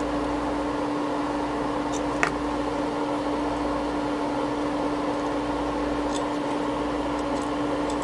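Steady fan-like hum with one constant tone from running bench test equipment, with a couple of faint light clicks about two seconds in as small SMA coaxial connectors are handled.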